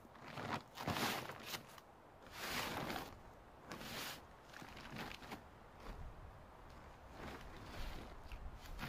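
Plastic tarp rustling and crinkling as it is handled, folded and pushed into a moss shelter, in several bursts that are strongest in the first three seconds, with softer shuffling on moss later.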